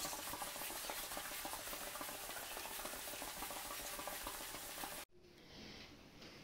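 Steady crackling, rustling noise that cuts off abruptly about five seconds in, leaving faint room tone.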